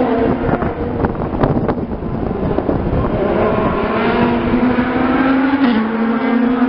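IndyCar race cars' twin-turbocharged V6 engines running at racing speed on a street circuit. One engine's pitch climbs, then drops with an upshift about five and a half seconds in.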